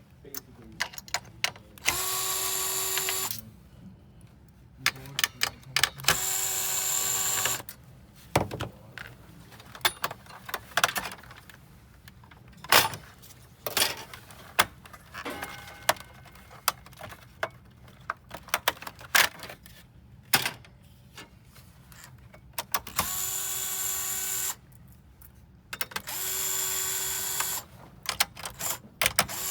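Electric screwdriver whirring in four short runs of about a second and a half, two near the start and two near the end, as it backs out case screws. Between runs there are scattered clicks and taps.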